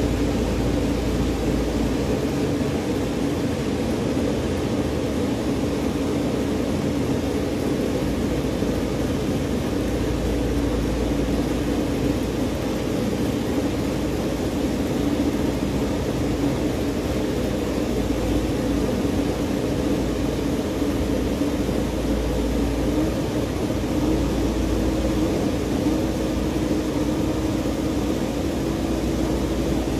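An engine running steadily, a constant droning hum whose pitch wavers slightly in the last several seconds.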